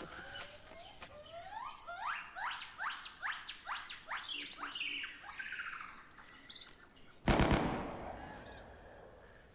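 A run of rising whistle-like chirps, about three a second, followed about seven seconds in by a single loud bang that dies away.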